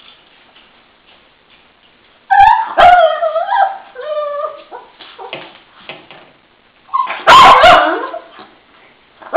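Shih tzu 'talking': a string of drawn-out, wavering vocal sounds that bend up and down in pitch, coming in several bouts from about two seconds in, the loudest near the end.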